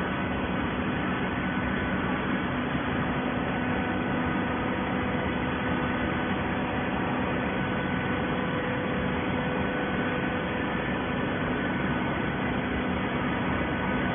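Steady machine hum with an even hiss and several constant tones, consistent with a hydraulic baler's electric motor and pump running. No starts, stops or impacts.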